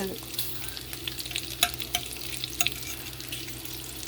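Bacon sizzling and crackling in a skillet, with a few light clicks of a metal fork against the pan as the slices are worked loose.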